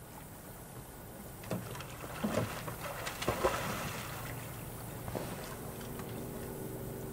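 Water splashing and a few short knocks as a swimmer hauls himself out of deep water onto a sliding-seat rowing shell, busiest a second and a half to four seconds in, with one more knock about five seconds in.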